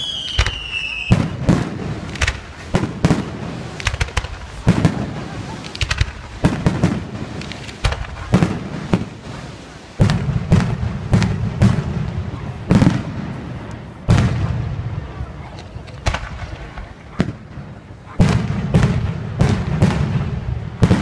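Aerial fireworks bursting in a rapid, irregular run of sharp bangs, with a falling whistle in the first second.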